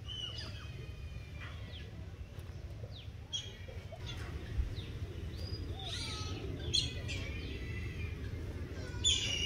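Birds chirping and calling: short high chirps and quick downward-sliding notes, coming more often in the second half, over a steady low background rumble.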